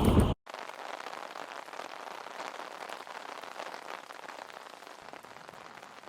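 Light rain: a steady patter of many small drops on surfaces outdoors. A short, louder rushing noise cuts off abruptly just after the start.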